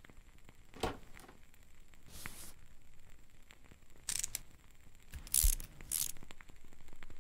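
Close-up sound effects of a metal ingrown-toenail corrector brace being handled and fitted onto a toenail: a click about a second in, then short scraping and rustling noises, the loudest with a dull thump about five and a half seconds in.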